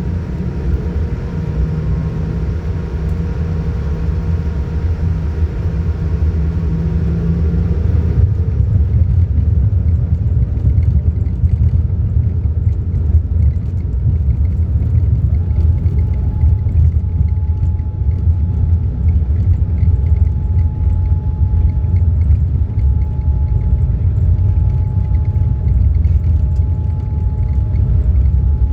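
Low, steady rumble inside the cabin of a Boeing 787-9 jetliner during its takeoff sequence, growing louder and deeper about eight seconds in.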